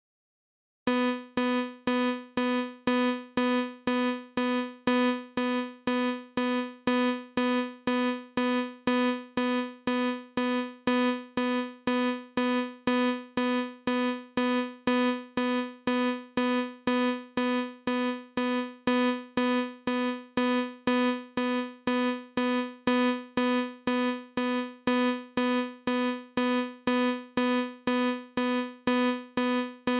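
A single synthesized keyboard note from Chrome Music Lab's Song Maker, repeated about twice a second, each stroke dying away quickly, made as a fire alarm or alarm clock beep. It starts about a second in.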